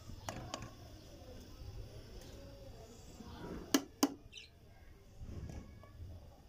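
A metal spoon knocking twice, sharply, on the pan about a third of a second apart, a little under four seconds in, while foam is skimmed off boiling strawberry jam. A faint chirp follows just after.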